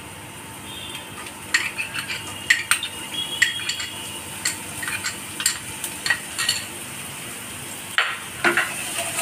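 A spoon clinking and scraping against a bowl as chopped spring onions are pushed into a pan of hot oil with minced garlic, with a run of quick sharp clinks for several seconds and one more knock near the end. A faint steady sizzle of the oil runs underneath.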